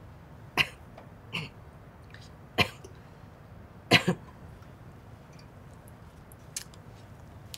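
A woman coughing in short single bursts while drinking water, about five times, with the loudest a double cough about four seconds in: coughing on thin liquids, a sign of swallowing difficulty (dysphagia) after a stroke.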